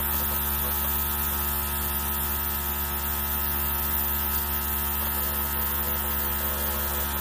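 Small airbrush compressor running with a steady, even hum, with a faint hiss of air from the airbrush as it sprays food colouring onto the cake.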